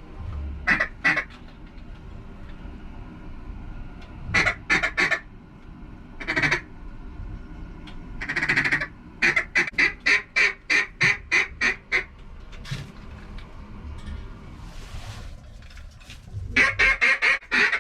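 Loud mallard quacking in short bursts: single and double quacks, then a run of about seven evenly spaced quacks, and a fast string of quacks near the end.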